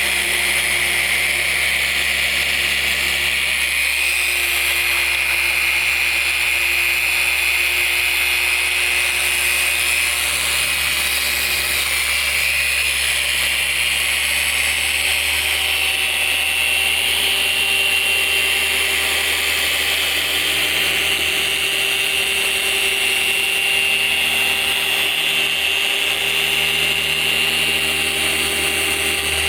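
Electric car polisher running steadily with a motor whine, working compound into black paint to cut out swirl marks; its pitch rises slightly about halfway through.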